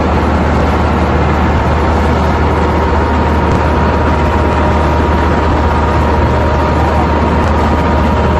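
Heavy engine running steadily, with a low rumble, a thin steady whine and a loud rushing noise over it.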